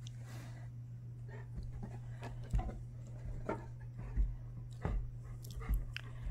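A dog moving about and sniffing as it searches for a ball, with several irregular soft thumps and a steady low hum.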